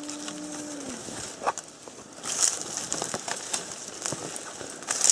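A long, steady low call that ends about a second in, followed by rustling leaves and sharp crackles and snaps of twigs as someone pushes through undergrowth on foot.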